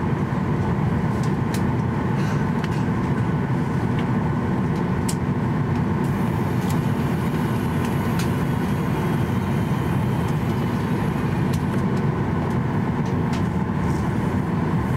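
Steady low cabin drone inside a Boeing 737-800 being pushed back from the gate, with a few faint clicks.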